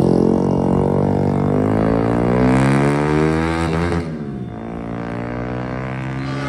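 Diesel-hauled train passing a railway level crossing: a deep locomotive engine drone that passes closest about four seconds in, then carries on lower and steadier.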